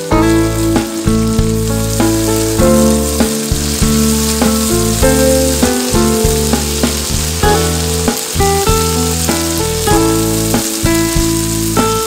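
Onion, garlic and chilli paste sizzling in hot oil in a wok while being stirred with a spatula, a steady high hiss. Background music with a stepping bass line plays over it and is the louder part.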